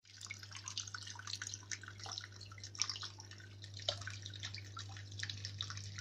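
Small homemade tabletop waterfall fountain running: water trickling and dripping into its shallow basin, many small irregular drips and splashes. Under it is a faint steady low hum.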